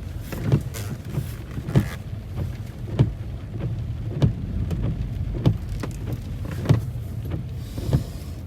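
Low, steady hum of the Jeep with its engine running, heard from inside, with a sharp regular knock about every second and a quarter.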